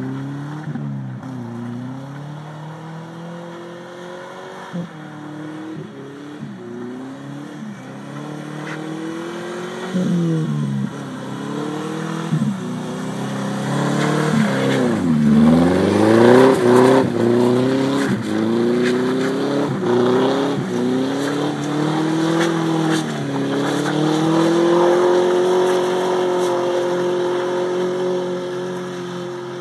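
1998 Subaru Outback's flat-four engine revving up and down again and again as the car slides sideways through the snow. It is loudest about halfway through as the car swings close, then is held at high revs for several seconds before easing off near the end.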